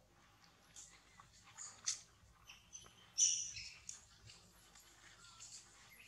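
Scattered short, high-pitched animal squeaks and chirps, the loudest about three seconds in.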